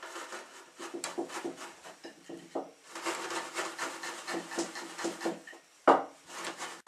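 Wooden rolling pin rolled back and forth over rusks wrapped in a cloth tea towel, the dry rusks crunching and crackling as they are crushed into breadcrumbs. A single louder thump comes about six seconds in.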